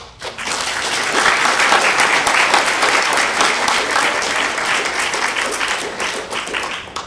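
Audience applauding, starting right away and dying down near the end.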